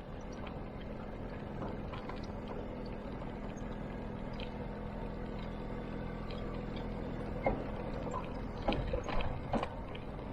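Small scooter engine running steadily while riding, with several sharp knocks and rattles between about seven and ten seconds in.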